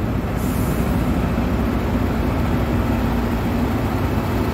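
Diesel semi truck idling: a steady low hum under a rushing noise.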